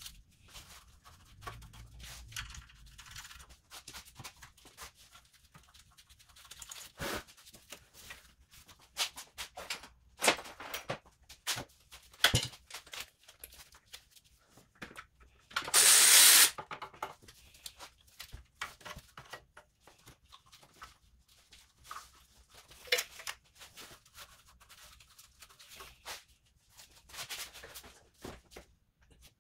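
Scattered clicks and knocks of parts being handled during hand work on an engine, with a louder burst of scraping noise lasting under a second about halfway through.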